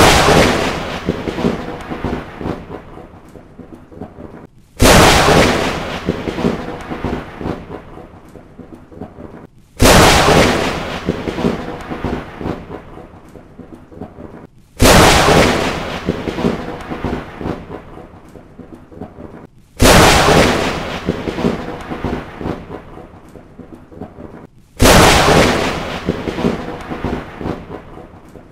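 Thunderclaps, six of them about five seconds apart, each a sudden crack that rumbles and crackles away over about four seconds; the identical spacing and shape point to one thunder sound effect repeated.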